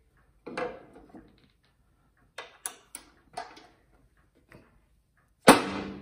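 Light knocks and clicks as a steel mounting plate is held against a band saw head and a transfer punch is set in its bolt holes, then one loud sharp strike about five and a half seconds in as a dead-blow hammer hits the transfer punch, marking the hole position, with a short ring after it.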